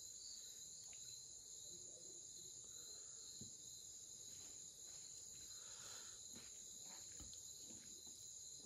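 Near silence filled by a steady high-pitched chirring of crickets or other insects, with a few faint soft ticks of fingers handling food.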